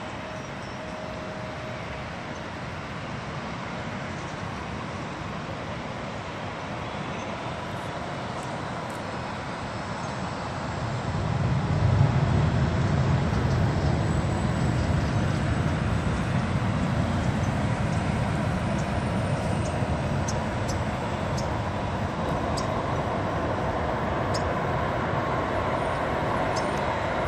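Airbus A380 on final approach: a steady jet roar with a deep rumble that grows louder about eleven seconds in and stays up, mixed with street traffic.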